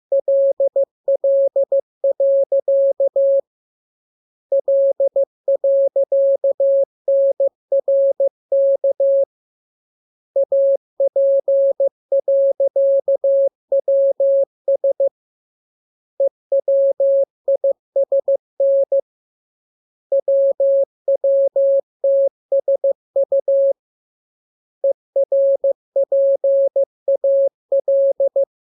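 Morse code sent as a single steady beep keyed on and off in dots and dashes, in runs of several seconds separated by pauses of about a second.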